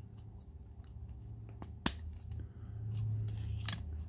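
Small clicks and rubbing of fingers pushing a deep-dish rubber tyre onto the wheel of a Majorette diecast Renault Mégane model car, with one sharp click about two seconds in. Near the end the car is set down on a glass tabletop.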